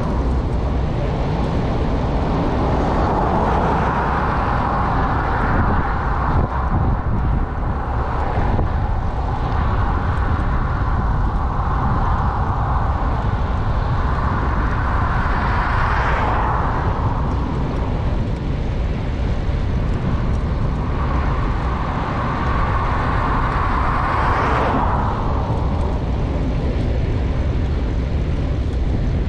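Steady wind rumble on the microphone of a moving bicycle, with road and tyre hiss that swells and fades several times.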